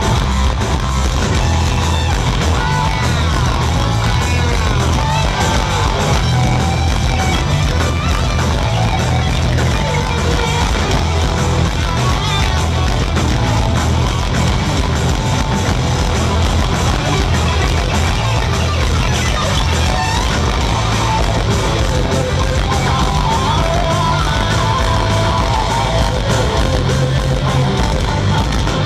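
A heavy metal band playing live, heard loud from the audience: distorted electric guitars over drums and bass, with a lead guitar playing sliding, bending lines in an instrumental passage.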